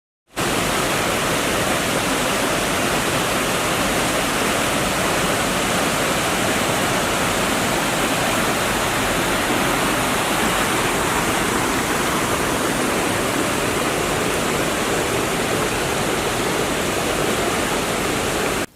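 Flowing river water rushing steadily, an even, unchanging rush that cuts in suddenly just after the start.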